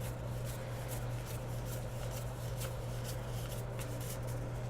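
Baseball trading cards being flipped through and handled: faint light card flicks about twice a second, over a steady low hum.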